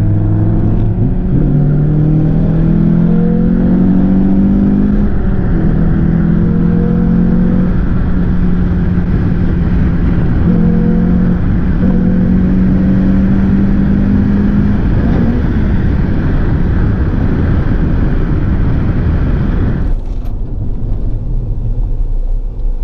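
Renault Clio 182's four-cylinder engine through a decatted straight-through Scorpion full exhaust, heard from inside the cabin, pulling hard. Its note climbs and drops back several times as it goes up through the gears, then settles into a steady drone with road noise. About twenty seconds in it drops to a quieter, duller sound.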